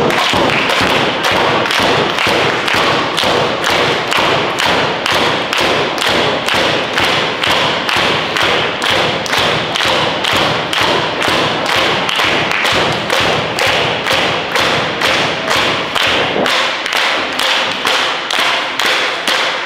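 Crowd clapping in unison in an arena, a steady rhythm of about two claps a second.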